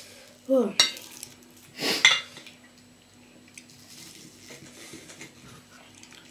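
Metal cutlery clinking and scraping against a ceramic bowl and plate during a meal. The loudest sounds come in the first two seconds, including a short squeak falling in pitch; softer clinks follow.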